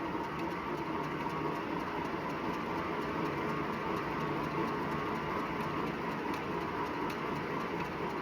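Wahoo Bike Shift smart indoor bike being pedalled, its drive running with a steady grinding and a rubbing noise that comes with every full pedal stroke. The owner takes it for a rubbing belt, a fault covered by warranty.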